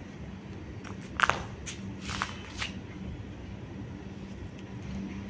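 A handful of short scuffs and clicks from small puppies moving about on a bare concrete floor, bunched between about one and three seconds in, over a steady low hum.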